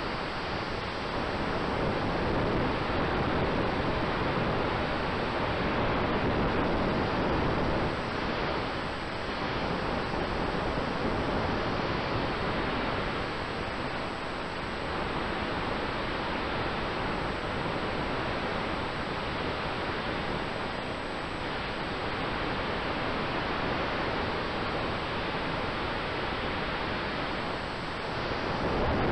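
Steady rush of airflow over the onboard camera of a large-scale model aircraft in flight, swelling and easing a little as it banks, with a faint steady whine underneath.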